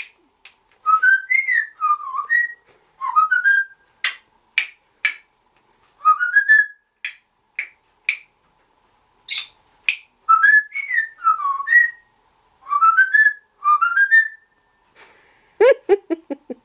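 Timneh African grey parrot whistling a short tune over and over, each rising run of notes followed by sharp clicks. Near the end it gives a lower, falling call.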